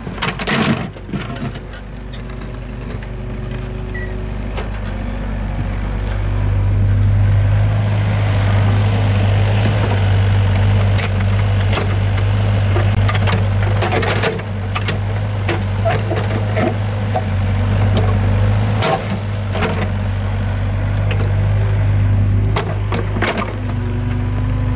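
Excavator's diesel engine running steadily, growing louder over the first several seconds, with occasional sharp knocks.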